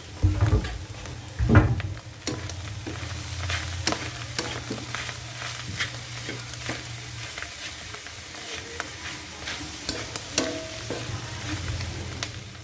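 Wooden spatula scraping and clicking against a metal wok as diced boiled pork lung is stir-fried, over a light sizzle. Two louder thumps about half a second and a second and a half in.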